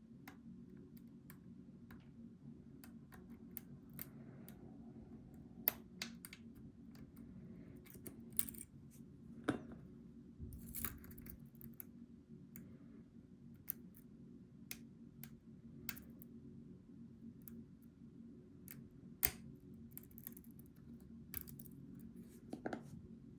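Irregular light metallic clicks and short scrapes of steel lock picks and a tension wrench working the pins inside a Goal V18 lock, over a steady low hum; two clicks, about six seconds in and near the end, stand out louder.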